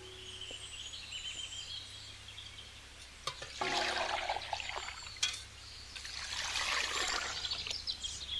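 Water trickling and pouring in two spells of a second or two each, with faint high chirps in the first couple of seconds and a short pitched sound about three and a half seconds in.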